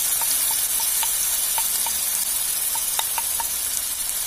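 Mustard oil sizzling in a steel kadai as ground turmeric and spice pastes go into it: a steady hiss with scattered faint ticks.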